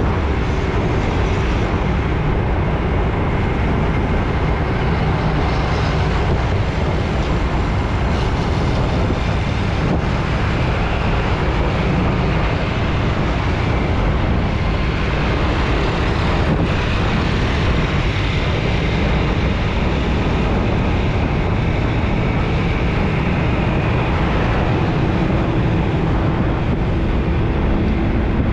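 Continuous road traffic: engines running and tyres on the road as vehicles pass steadily, with a low rumble throughout and a faint steady engine tone coming in near the end.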